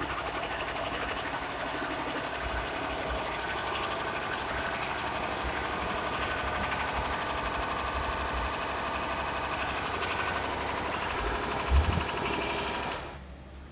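A steady mechanical running noise with a fine rattle, like a small engine or compressor, that cuts off abruptly about a second before the end. A dull thump comes shortly before it stops.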